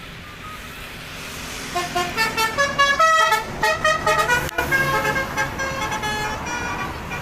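A bus's basuri telolet horn playing a quick tune of short pitched toots over a running vehicle, starting about two seconds in.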